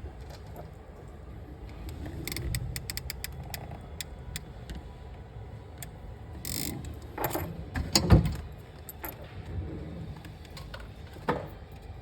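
Small metallic clicks and knocks from a crimp tool and Deutsch socket pin being handled. A quick run of clicks comes about two seconds in, a short hiss near the middle, and the loudest knock about eight seconds in.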